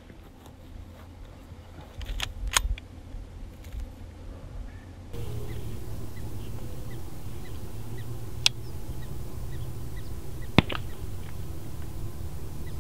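Wind rumbling on the microphone, broken by a few sharp cracks: a cluster about two seconds in and single ones past the middle and near the end.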